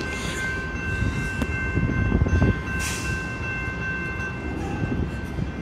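Low, steady rumble of heavy vehicles, rising and falling a little, with faint steady high-pitched tones that fade out about four seconds in.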